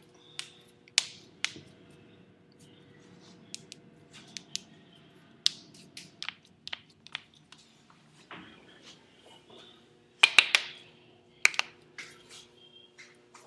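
Knuckles cracking: a string of sharp pops and clicks at irregular intervals. The loudest is a quick cluster of several cracks about ten seconds in, followed by another single pop a second later.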